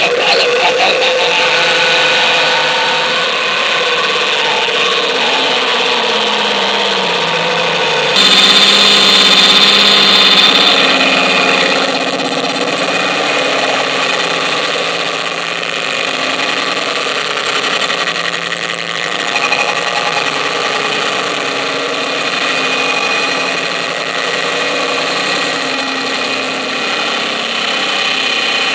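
Harsh noise music: dense layered electronic static and droning tones, with a slow falling pitch sweep. About eight seconds in it cuts abruptly to a louder, brighter wall of noise, which settles into a steady droning texture.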